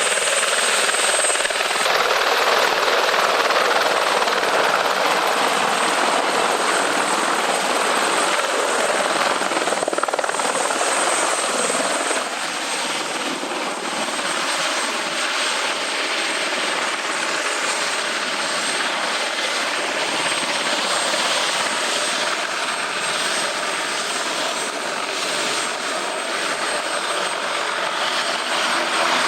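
Helicopter flying, a steady rushing engine and rotor noise that drops a little in level about twelve seconds in.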